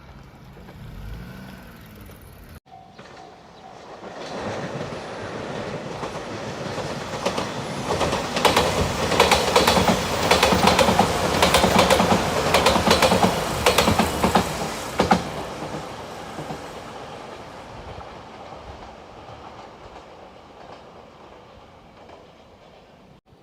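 Passenger train passing at speed, its wheels clattering rhythmically over the rail joints. It builds up, is loudest for several seconds in the middle, and then fades away slowly.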